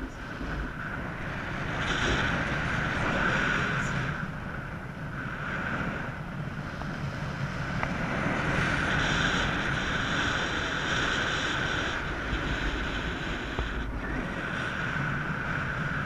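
Airflow from a paraglider in flight rushing over the camera microphone, a steady wind noise that swells and eases in gusts, louder about two seconds in and again in the middle.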